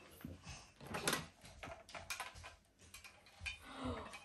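Light clicks and taps of small plastic parts of a ring-light vlogging kit being handled and fitted together, irregular and quiet.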